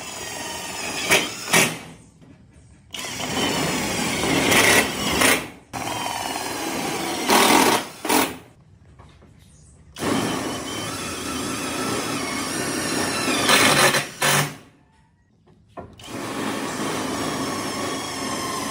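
A power tool running in about five separate runs of a few seconds each, with short pauses between them; its whine slides in pitch as it speeds up and slows.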